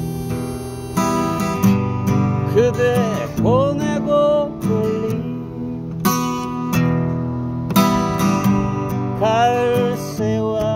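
Steel-string acoustic guitar strummed in a steady rhythm under a melody on a Lee Oskar harmonica in G, with some notes bent.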